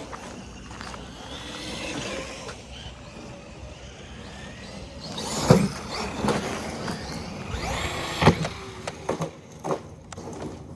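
Electric RC monster truck's brushless motor and drivetrain whining as it speeds up and eases off, with a few short knocks.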